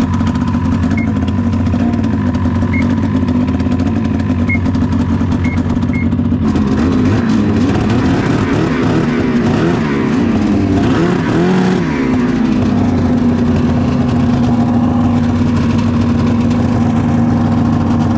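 Snowmobile engine of a 700 sled running just after being pull-started: a steady idle, a few throttle blips in the middle that push the pitch up and down, then back to a steady idle.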